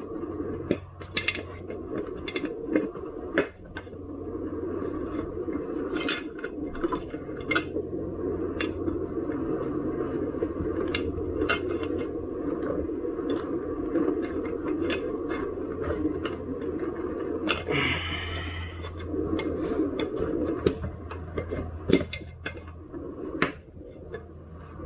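Irregular metallic clicks, clinks and scrapes of a flat screwdriver and plastic tyre levers working against a KingSong 16X electric unicycle's wheel rim, prying the tyre bead off, over a steady background hum.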